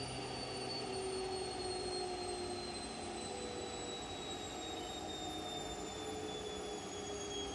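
Washing machine running, its motor whining and falling slowly in pitch as the drum spins down.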